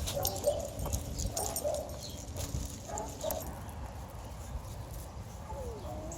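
A dog whining in short, high calls, three of them in the first few seconds, then a longer whine that slides down in pitch near the end.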